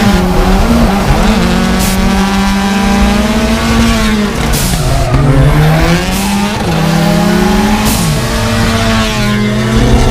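Turbocharged Hyundai Genesis Coupe drifting, its engine revving up and down over tyre squeal. About four times its Turbosmart Raceport blow-off valve vents with a short sharp hiss as the throttle is lifted.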